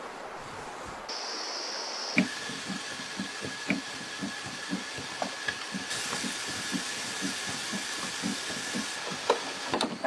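Wooden hand-cranked winnowing machine running, starting about two seconds in: small seeds pour from its chute into a woven basket with a steady hiss, over a regular knock about three times a second and a thin steady whine.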